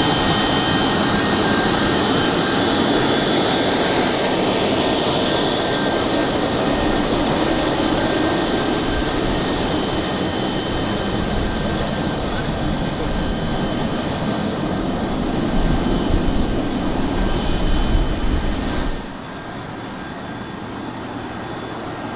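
Boeing 737-200's Pratt & Whitney JT8D-17 turbofans running loud: a steady high whine over a rough, low rumble that grows heavier near the end. The sound then drops off suddenly a few seconds before the end.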